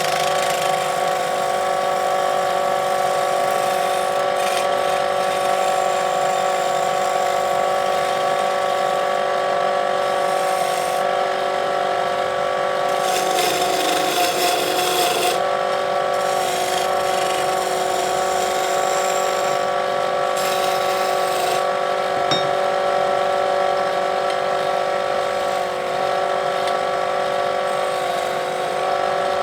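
Wood lathe motor running with a steady whine. In stretches, most strongly near the middle, a hissing cut comes in as a tool works the spinning wood, and the pitch wavers slightly under that load.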